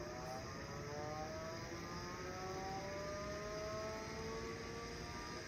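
Seagate ST-225 hard drive spinning up at power-on: a faint whine that climbs slowly in pitch, over a steady low hum from the power supply and its fan.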